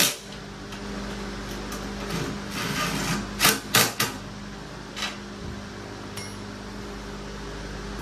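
Sharp knocks and clanks of metal parts and tools being handled during dirtbike frame assembly: one at the start, three in quick succession a little past three seconds in, and one more about five seconds in. A fan runs throughout with a steady hum.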